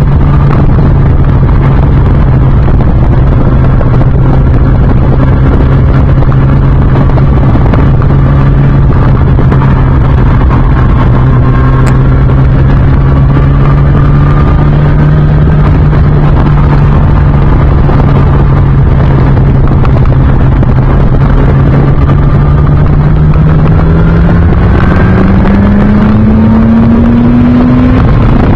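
Yamaha R1 (RN19) inline-four, with an Akrapovic silencer and the catalytic converter removed, heard from the rider's seat at steady mid-range revs over a constant rush of wind and road noise. Over the last five seconds the revs climb steadily as the bike accelerates, briefly dipping right at the end.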